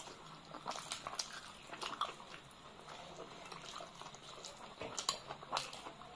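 Two people eating rice and chicken curry by hand: wet chewing and lip smacks, with fingers squishing the rice and gravy, heard as an irregular scatter of short wet clicks.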